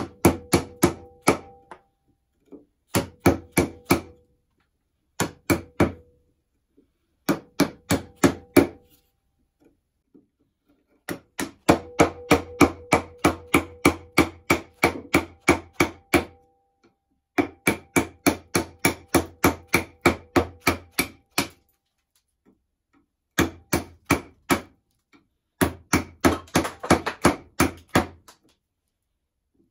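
Bench chisel driven by a mallet, chopping out a recess in a hardwood banjo-neck block: runs of quick sharp knocks, about five a second, in bursts of one to several seconds with short pauses between.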